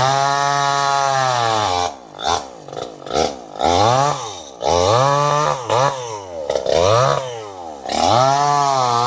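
Two-stroke chainsaw engine being throttled up and down repeatedly. It holds one long high rev of about two seconds at the start, then gives a few short blips, then a run of roughly one-second revs, and another long rev near the end.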